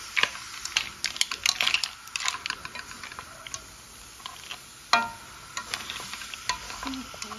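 Mussels in their shells, crabs and corn sizzling and crackling in a pan as they are stirred with a wooden spatula, the shells clattering. About five seconds in there is one sharp knock with a brief ring.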